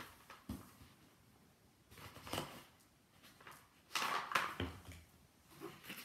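Cardboard box and packaging being handled: a light knock about half a second in, then bouts of rustling and scraping. The loudest bout comes about four seconds in.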